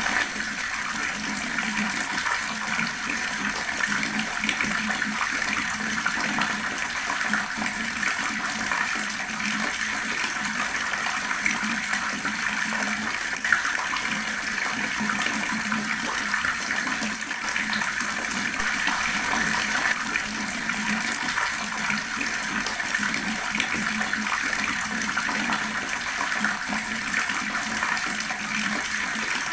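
Water running steadily from an outdoor tap, gurgling and splashing without a break.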